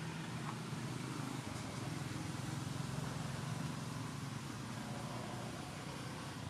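A steady low hum of an engine running, with no change in pitch.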